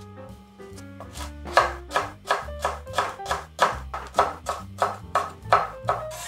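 Chef's knife slicing a green chili on a wooden cutting board: a steady run of sharp chops, about four a second, starting about a second in and stopping near the end, over background music with sustained notes.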